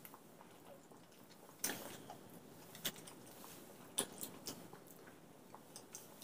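Faint sounds of people eating steamed momos: chewing and mouth noises, broken by a few sharp clicks.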